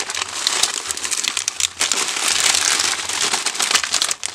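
Bubble wrap and plastic packaging crinkling and rustling as hands pull and unwrap a large bundle, with many small sharp crackles.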